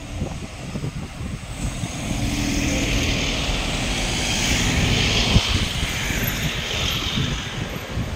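A motor vehicle passing on the road, its engine and tyre noise rising, peaking about five seconds in, then fading away. There is a short knock near the peak.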